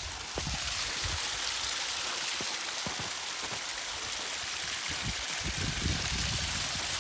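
Snowmelt running and splashing down over rocks in a small mountain stream: a steady rushing hiss.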